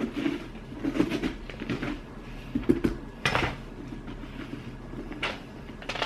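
Household handling noises: scattered clinks, knocks and scrapes of utensils and dishes, with the sharpest knocks about a second in, around three seconds in, and near five seconds.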